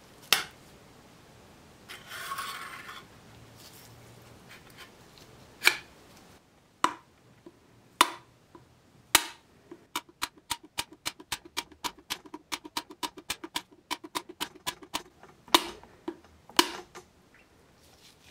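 Screwdriver ratcheting on a screw in the steel bayonet scabbard: a fast, even run of clicks, about six a second, lasting some five seconds. Before and after it come single sharp knocks of the metal scabbard and tools set down on a wooden table, and a short rub early on.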